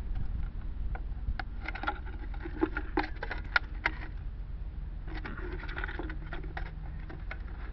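Thin aluminium drink cans being pressed and slid together by hand, the crankshaft-support can being pushed into the head can of a homemade Stirling engine: a run of light crinkling clicks and scrapes from the can walls in two clusters, over a low steady background rumble.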